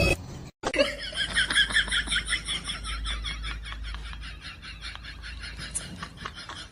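A person laughing in quick, high repeated bursts, about five a second, slowly fading.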